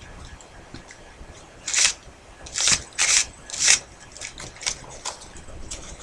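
Paper slide of a homemade paper H&K USP pistol model being worked along its paper frame: four short scraping swishes of paper on paper between about two and four seconds in, with lighter rustles and ticks around them.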